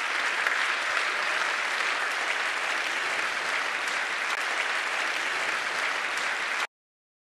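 A large audience applauding steadily; the clapping stops abruptly near the end.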